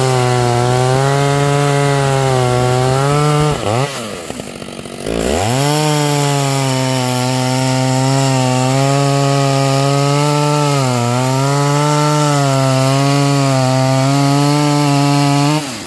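Stihl 056 AV two-stroke chainsaw cutting through dry logs at full throttle, its revs sagging slightly under load. About three and a half seconds in the saw comes out of the cut and the throttle is let off, then it revs back up into the next cut; the revs drop away near the end.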